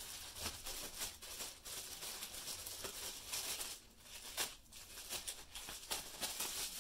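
Clear plastic packaging bags crinkling and rustling as they are handled and picked open, with scattered light clicks.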